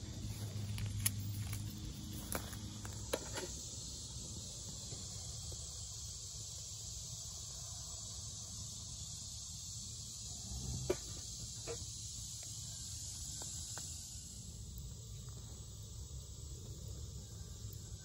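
Steady high chirring of insects, with a handful of sharp crackles and pops from twigs burning in a small stainless-steel rocket stove: a few in the first seconds and a couple more past the middle. A low rumble runs underneath.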